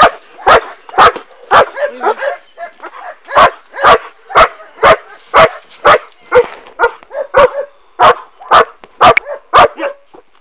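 German Shepherd barking hard and repeatedly at a helper in protection work, about two loud barks a second, with a few weaker ones in a short lull about two seconds in.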